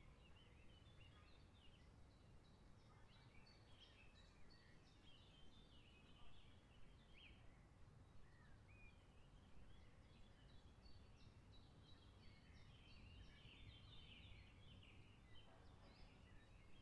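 Faint outdoor ambience of birds singing: many short chirps and quick trills, over a low steady rumble.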